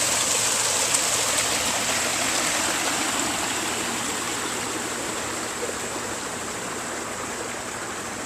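Water from a pump-fed backyard pond waterfall pouring steadily over its edge into the pond, a steady rushing splash that slowly gets a little quieter.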